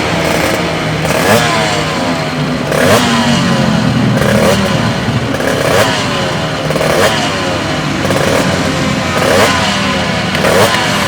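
Two-stroke racing motorcycle engine being revved in short throttle blips, about one a second, each rising sharply in pitch and falling back toward idle.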